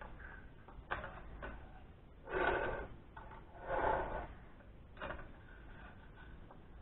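A wooden toolbox drawer slides twice with a scraping rub, around a knock or two of tools being handled inside.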